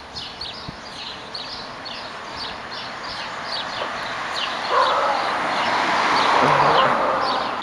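Small birds chirping: short, high, falling chirps repeated about three times a second. From about five seconds in, a broad rushing noise swells up and becomes louder than the chirps.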